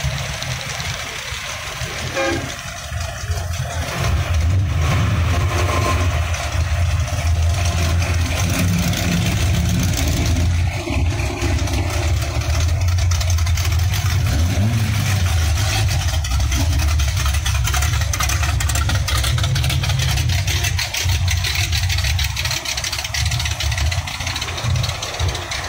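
A car engine running at idle close by, a steady low drone that grows louder about four seconds in.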